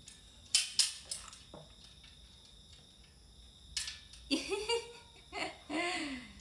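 A few sharp knocks and clicks of the metal rack tubes and fittings being handled during assembly, then, from about four seconds in, a person's voice in short wordless sounds, laughter-like.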